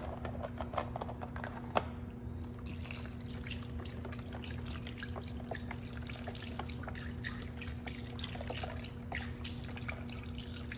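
Chicken broth pouring from a carton into a slow cooker of chicken pieces: a steady run of trickling and small splashes, starting a couple of seconds in.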